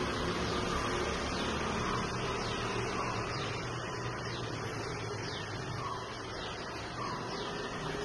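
Steady background noise with a low hum, with faint, short bird chirps scattered through it.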